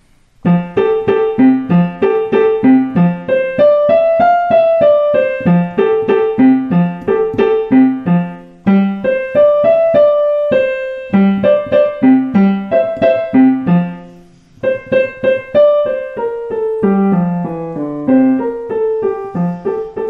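Digital piano playing a simple beginner piece note by note, with a low left-hand part under a middle-register melody. The playing breaks off briefly twice, around the middle and again about two-thirds through: unwanted hesitations in a learner's practice run.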